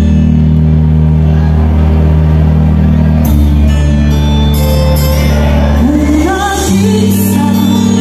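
A singer performing live over loud backing music through stage speakers, with a sustained chord underneath and a note sung with vibrato about six seconds in.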